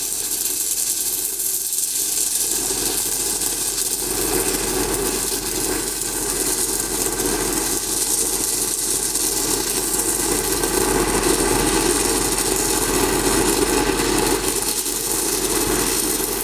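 Stick-welding arc on a pipe's downhill root pass, on a fresh electrode: a steady crackling hiss without a break.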